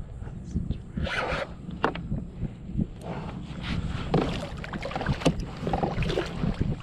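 Water sloshing and splashing around a kayak, with scattered knocks and scrapes on the hull and wind rumbling on the microphone.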